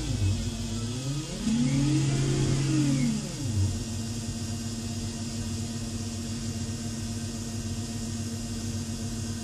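Siemens electric drive motor of a BMW E31 840Ci electric conversion being revved while the car stands still. Its whine rises and falls in pitch: one rev winds down just as the sound begins, and a second lasts about two seconds. After that a steady hum remains.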